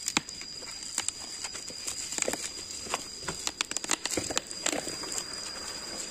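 Plastic packaging crinkling and crackling in irregular snaps as hands peel it off a bottle.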